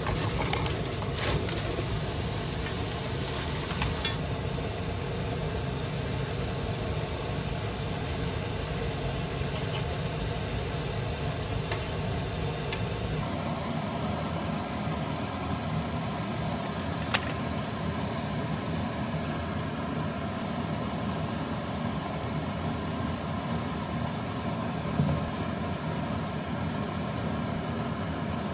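Thin-sliced pork belly frying in a pan with a steady sizzle, with a few light clicks from a spatula against the pan.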